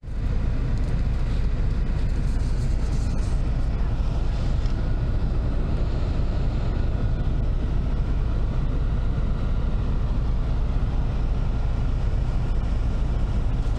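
Steady low rumble of a moving passenger vehicle's engine and road noise, heard from inside the vehicle.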